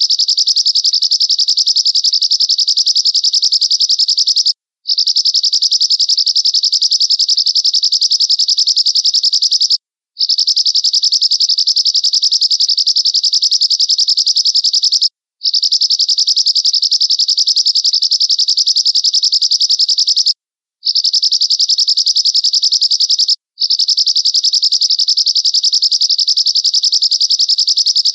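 Looped finch song recording of the bird sold as 'American finch': a rapid, high-pitched trill held about five seconds at a time, repeated six times with short gaps and no background sound.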